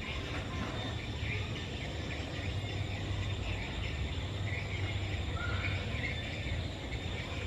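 Outdoor ambience: a steady low rumble with short high chirps and a few brief rising calls scattered through.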